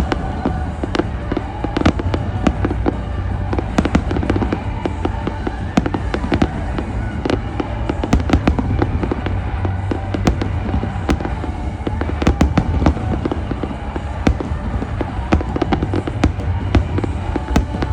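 Fireworks display: a dense, continuous barrage of bangs and crackling bursts, several a second, over a low rumble, with music playing underneath.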